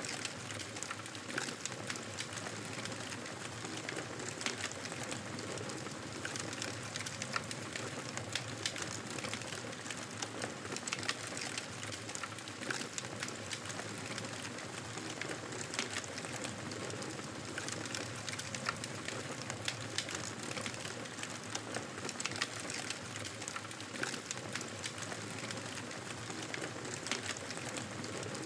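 Campfire burning steadily: a continuous hiss of flames with frequent small, irregular crackles and pops from the burning wood.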